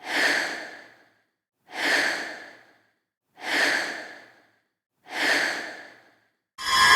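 Spooky breathing sound effect: four slow breaths, each about a second long and fading away, spaced evenly about 1.7 seconds apart.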